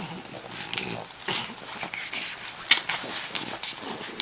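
French bulldogs play-fighting, making a string of short, irregular snorts and snuffles with some low grumbling between them.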